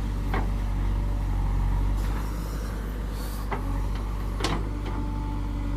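JCB backhoe loader's diesel engine running steadily while it digs and loads soil, with three or four sharp knocks. A steadier pitched note joins near the end, as the engine comes under more load.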